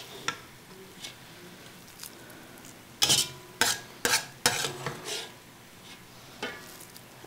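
Wooden-handled metal spoon scraping and knocking inside a black pot as fried minced meat with vegetables is scooped out, in a quick run of scrapes and clicks from about three seconds in.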